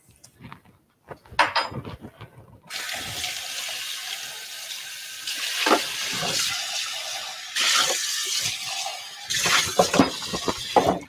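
Kitchen tap running for about six seconds, its flow growing stronger partway through. Short knocks and clatter of dishes come before and after it.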